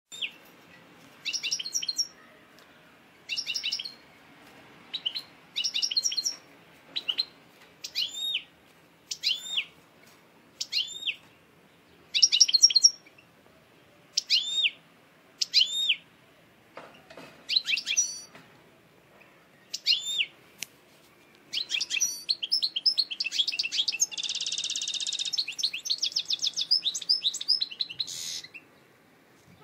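European goldfinch singing: short separate phrases of bright, arching high notes about every second or two, then, about two-thirds of the way in, a continuous fast twittering song with a buzzy trill in the middle, which stops shortly before the end.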